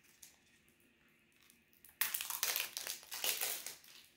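Small sealed cardboard product box being torn open at its lid: a loud crackling, ripping noise in two surges, starting about halfway in and lasting nearly two seconds.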